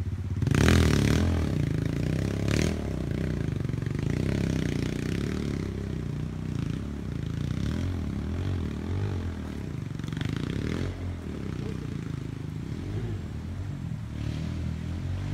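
Kawasaki KLX trail bike's single-cylinder engine running steadily, with sharp knocks and scraping as it works over loose rocks, the loudest knocks in the first few seconds.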